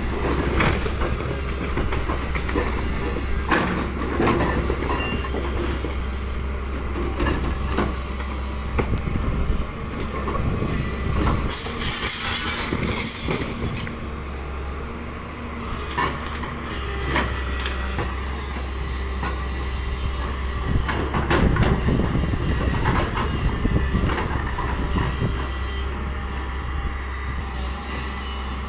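Demolition machinery at work: a steady engine drone under irregular metallic clanks and knocks, with a burst of hiss about twelve seconds in.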